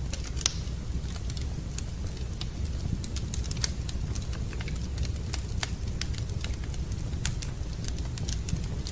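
Wood fire crackling in a fireplace, with irregular sharp pops and snaps over a steady low rumble of the burning fire.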